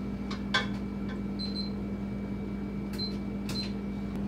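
Wooden spatula stirring a thin soy milk and starch mixture in an aluminium saucepan, with a few light scrapes and clicks against the pan's bottom and sides, over a steady low hum.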